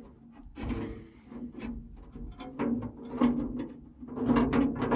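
Irregular metallic knocks, clanks and scrapes as a replacement door latch is worked up into place inside an M35A2 truck's steel door, getting louder near the end.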